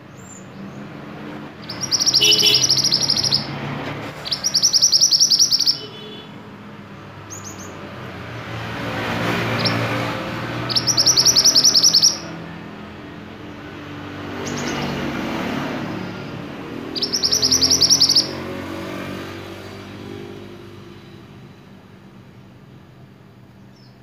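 Male minivet singing: four loud bursts of fast, high, rapidly repeated notes, each about a second and a half long and several seconds apart, with a few short fainter calls between. A low rushing background noise swells and fades twice between the bursts.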